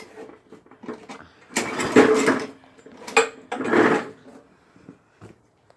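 Old lawnmower's small engine being pull-started, turning over in short bursts with each yank of the recoil cord, nearly firing but not staying running. Three pulls, the middle one short, and the sound dies away in the last second or so.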